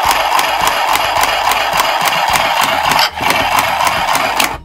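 Singer Stitch Quick handheld electric sewing machine running as it stitches through felt: a steady motor buzz with a fast, regular clatter from the needle mechanism. It stops briefly about three seconds in, runs again, then stops.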